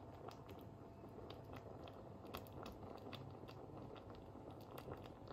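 Potato-and-mince stew simmering in a pan, faint, with scattered irregular crackles and pops from the bubbling liquid over a low steady hiss.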